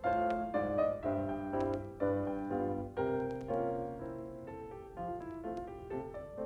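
Solo piano music: struck chords under a moving melody, with a held chord about three seconds in.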